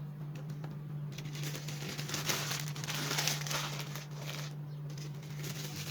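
Crinkling and rustling of paper sheets being handled, starting about a second in and easing off near the end, over a steady low hum.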